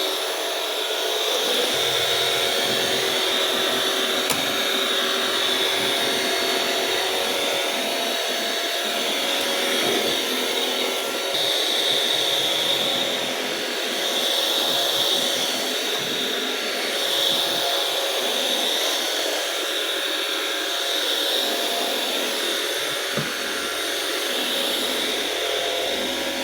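Saferet upright cordless vacuum cleaner running steadily, its motor giving a high whine that swells and fades a little.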